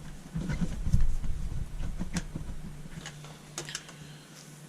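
Scattered clicks and knocks of handling, with a louder thump about a second in, as the dryer's heavy power cord is plugged back into the wall outlet.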